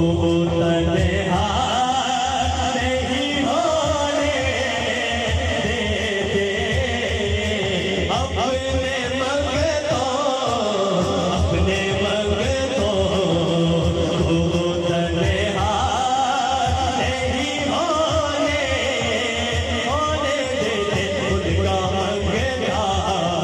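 A man singing an Urdu naat (devotional praise poem) through a microphone and PA system, with long, ornamented held notes over a steady rhythmic backing.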